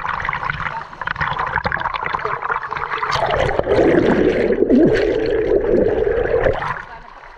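Fast river current splashing and churning at the surface, then heard from underwater: about halfway through the sound turns to a louder, muffled rushing and bubbling, which drops away suddenly near the end.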